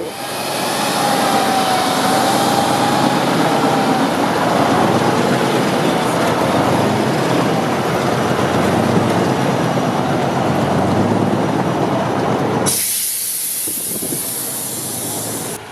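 Heavy off-road trial truck's diesel engine running hard under load, a loud, dense rumble with hiss. Near the end the sound changes abruptly to a thinner hiss.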